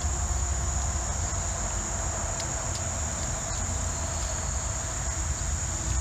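Steady high-pitched drone of insects in the summer woods, over a low, steady rumble of traffic on the four-lane highway overhead.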